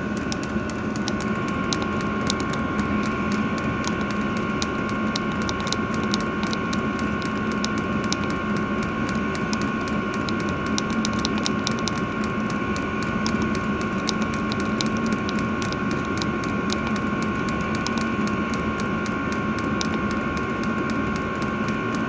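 Diesel air heater running: a steady whine from its blower fan with rapid, irregular ticking, typical of the fuel dosing pump feeding the burner.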